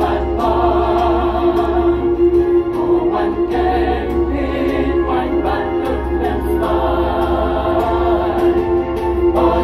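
Mixed choir of women's and men's voices singing a sacred song in harmony, with one strong note held steadily under the moving parts. A steady low hum runs beneath the singing.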